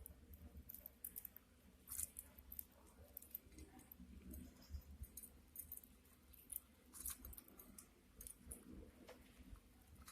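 Budgerigars eating, faint irregular clicks and crunches of beaks cracking seed.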